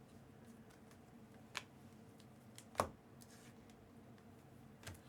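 Trading cards being handled and flipped through: a few soft clicks and slides, the sharpest about three seconds in, over a low steady hum.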